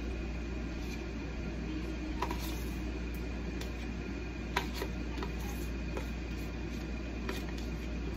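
Steady low hum of background room noise, with a few faint clicks and scrapes of a metal spoon scooping sour cream out of a plastic tub into a pot of mashed potatoes.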